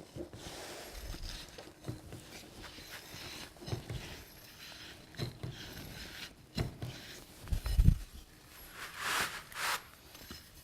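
Scattered knocks, clicks and scrapes of a wonder bar lifting a door off a mat and a door sweep being worked into the door's bottom, with a dull thump about eight seconds in and a couple of short scrapes just after.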